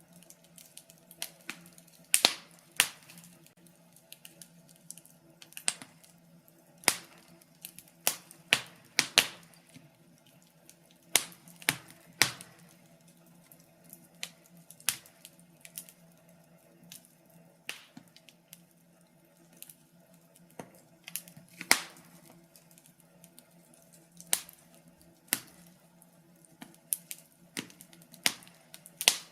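Firewood burning in a fireplace, crackling with irregular sharp pops and snaps, roughly one or two a second and bunched more densely in the first half, over a faint steady hum.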